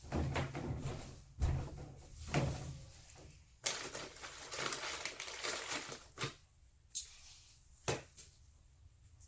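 Hand work on a steel wall plate and tools: rustling and scraping, then three sharp clicks or knocks in the last few seconds.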